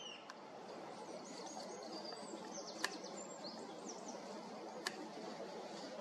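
Small birds chirping and singing in quick high notes over a steady outdoor background hiss, with two sharp clicks about two seconds apart near the middle.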